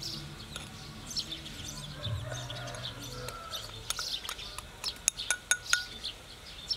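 Small birds chirping repeatedly, with a spoon clinking against a ceramic bowl as it scrapes powder out onto raw pork ribs; the clinks come as a quick run of sharp taps, some ringing briefly, from about four seconds in.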